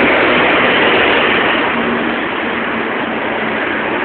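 Steady street traffic noise, with a vehicle passing close that is loudest about a second in and then eases off.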